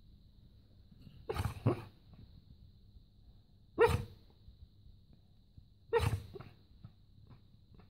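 Dog barking in its sleep while dreaming: three short barks, the first one doubled, each about two seconds apart.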